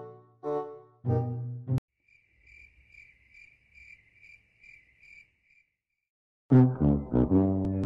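Brass-led background music that cuts off about two seconds in. It gives way to a cricket chirping evenly, about two to three chirps a second, for a few seconds. The music comes back in loudly near the end.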